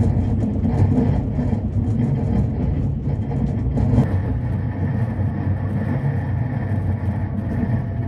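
Kuroshio limited express train running along the rails, a steady low rumble of the wheels and motors heard from inside the passenger car.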